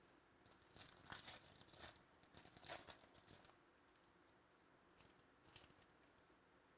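Foil wrapper of a trading card pack being torn open and crinkled by hand, faint: a run of crackly tearing and rustling for about three seconds, then a shorter crinkle about five seconds in.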